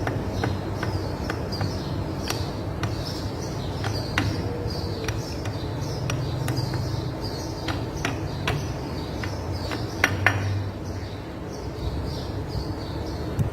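Scattered light metal clicks and clinks of tools and transmission parts being handled, with two sharper knocks close together about ten seconds in. Small birds chirp over and over, over a steady low hum.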